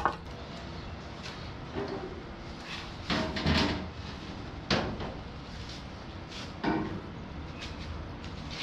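Heavy wooden frame of boards being handled and turned over on a folding table, giving a handful of sharp wooden knocks and bumps a second or two apart.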